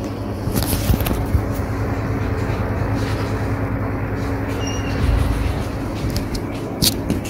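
Airflow ceiling exhaust fan running with a steady whir and low hum. A few light clicks come about a second in and again near the end.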